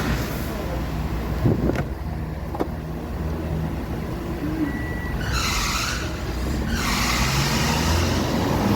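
Toyota Vitz four-cylinder engine idling, with its ignition coils swapped between cylinders while a cylinder 4 misfire is tracked down. A few sharp knocks come about a second and a half in, and a burst of hiss about five seconds in, then again near the end.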